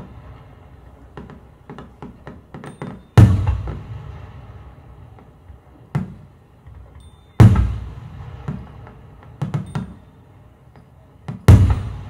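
Sparse percussion music played back through a pair of KEF Q750 floorstanding speakers: three loud, deep drum strikes about four seconds apart, each ringing out, with lighter knocks between them.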